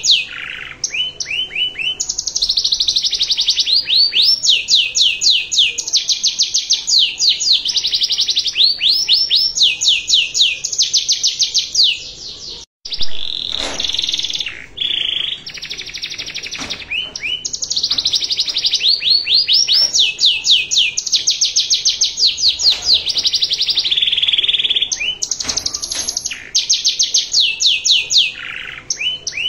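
Domestic canary singing a long, fast song: runs of rapid trills made of repeated high, downward-sweeping notes, one phrase after another. The song breaks off for a moment a little before halfway, then carries on.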